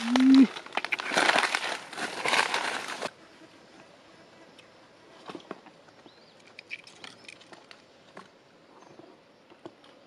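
Machete cutting and prying into tree bark: dense crunching and cracking of wood for about three seconds, opening with a short grunt, then stopping abruptly. After that only faint scattered clicks and a few soft chirps from parakeets at their nest hole.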